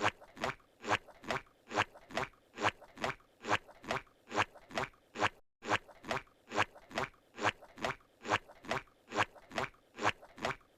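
Squidward's cartoon walking sound effect: a steady run of squelching, pitch-bending footsteps, about two to three a second, with a brief break about halfway through where the loop restarts.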